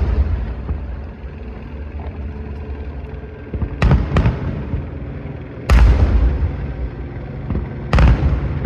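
Aerial fireworks bursting overhead with loud booms: two close together about four seconds in, another a moment later, and one near the end, each trailing off in a low rumble.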